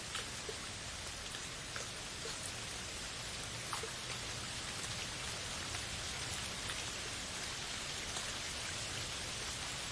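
Steady rain falling on forest foliage, a dense even hiss with scattered individual drops ticking close by.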